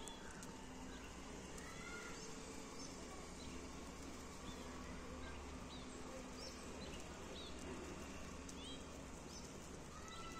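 Small birds giving short, high chirps, scattered at first and more frequent in the second half, with a couple of lower whistled calls. A faint steady hum runs underneath.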